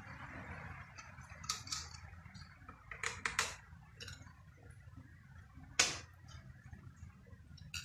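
Small clicks and metallic clinks of hands working loose the phase-cable connections on an electric motor's terminal block. A few clicks come about a second and a half in, a quick cluster around three seconds, and the sharpest single click near six seconds.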